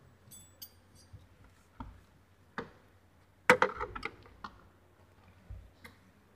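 Scattered knocks and clicks of a car armrest console and its plastic trim being handled, with a loud cluster of rattling knocks about three and a half seconds in.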